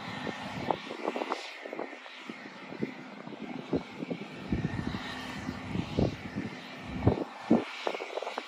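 Twin Williams FJ44 turbofan engines of a Cessna Citation CJ2 business jet running, heard as a steady hiss across the airfield. Irregular low thumps run through it, the loudest about seven seconds in.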